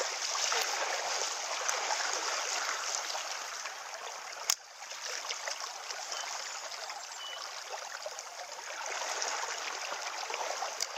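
River current flowing steadily. One sharp click comes a little before halfway.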